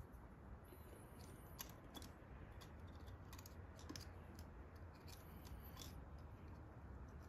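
Near silence broken by faint, irregular small metallic clicks and scrapes: an angled pick working inside a Keihin FCR carburetor to fish out the jet needle.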